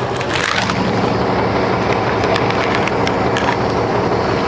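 Caterpillar C13 ACERT inline-six diesel engine of a 2009 NABI 416.15 transit bus idling steadily while the bus stands still.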